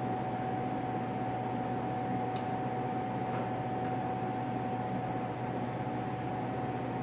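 Steady room hum and hiss with a faint constant whine, and a few faint ticks in the middle.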